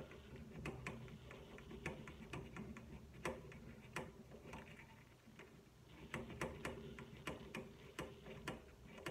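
Faint, irregular light clicks and taps as a keyed clarinet joint is handled up close, its metal keys and body knocking softly.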